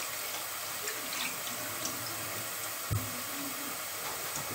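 Soffritto of chopped onion and carrot sizzling gently over low heat in a steel pot, with a stock cube melting into it: a steady hiss with a few faint pops.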